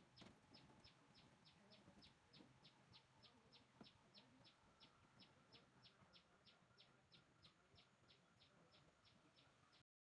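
Very faint outdoor ambience with a high-pitched chirp repeating evenly about three to four times a second. It cuts off suddenly near the end.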